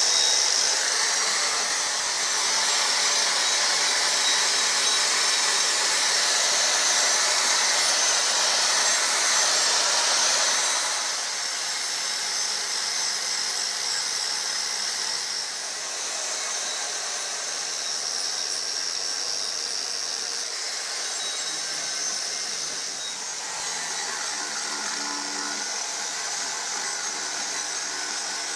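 Ryobi angle grinder running with a high whine, its disc grinding into wood to shape a carving. It is somewhat quieter after about eleven seconds.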